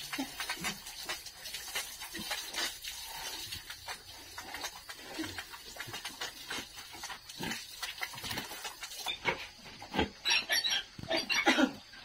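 Pigs grunting over the splash of water from a hose onto the pen's floor. Near the end the water stops and a louder run of pig calls follows.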